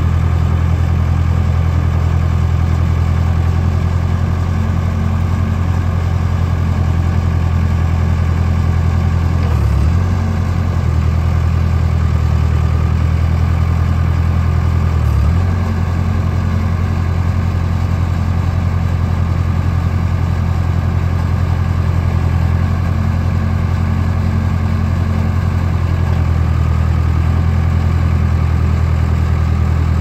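Case 580 Super K backhoe's diesel engine idling steadily with a deep, even hum. The hum dips briefly twice, about ten and fifteen seconds in.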